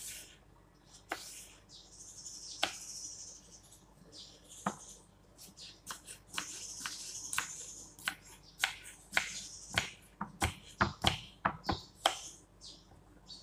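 Kitchen knife cutting cucumber on a wooden chopping board: a few single knocks at first, then a quick run of chops, about two or three a second, in the last few seconds.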